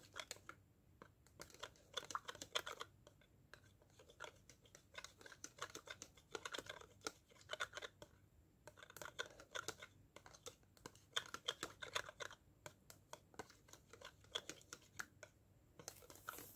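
A spoon stirring sugar water in a plastic cup, making faint, irregular clicks and scrapes against the cup's sides in clusters with short pauses.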